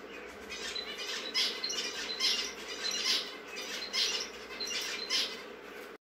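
Small pet finches calling over and over, short nasal calls about twice a second.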